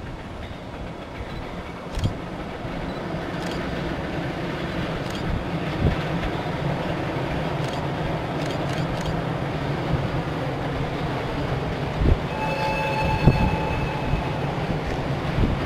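JR Freight electric freight train approaching on the line, its rumble and wheel noise growing steadily louder, with a few short knocks. About twelve and a half seconds in, several steady high tones sound together for a couple of seconds.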